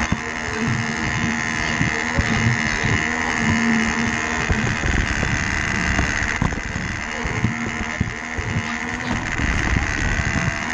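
Battery-powered Lego Duplo train's small electric motor whirring steadily as it drives along plastic track, its wheels rattling and knocking irregularly over the track, heard close up from on board the train.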